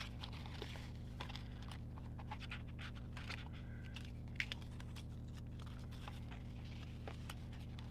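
Sticker sheets and planner pages being handled: scattered scratchy rustles and small ticks, one sharper tick a little past the middle, over a steady low hum.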